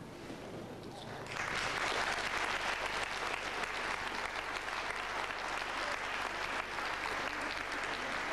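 Audience applauding. It starts about a second in and holds steady, a dense patter of many hands clapping.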